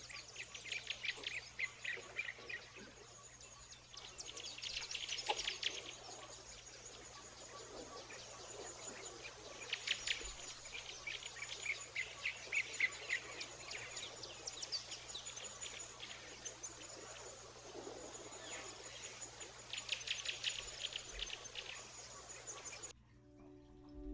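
Nature ambience of birdsong and insects: clusters of rapid bird chirps every few seconds over a thin, high insect tone that pulses on and off. It cuts off suddenly near the end.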